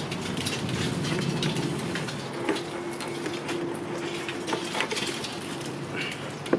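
Scattered plastic clicks and creaks as the empty airbox of a Land Rover Freelander 2 is gripped and pulled upward against its rubber mounts. A steady hum sits in the background from about two seconds in until near the end.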